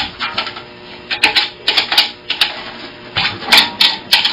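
Irregular sharp metallic clicks and taps, about a dozen, from the tension hardware of a banjo pot being worked and handled. The loudest few come in a quick cluster near the end.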